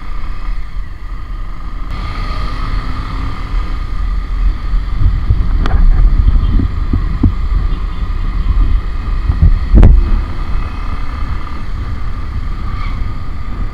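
Motorcycle on the move, heard from the bike: wind on the microphone over the running engine and road noise. There are two sharp knocks, the louder one about ten seconds in.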